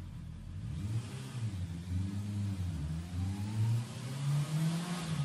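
Honda CB650R inline-four engine revved through its stock exhaust, the throttle blipped several times so the pitch rises and falls with each rev.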